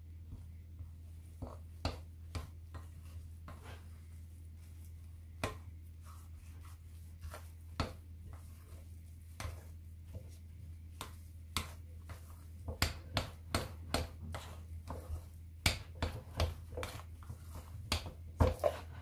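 A hand mixing and kneading sticky yogurt-and-flour dough in a glass bowl: irregular squelches, slaps and light clicks against the glass, coming faster in the second half, over a steady low hum.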